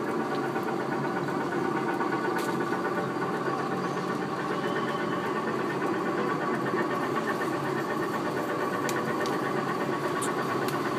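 Small ride-on tractor of an amusement-park track ride running steadily along, its motor giving a steady mechanical hum.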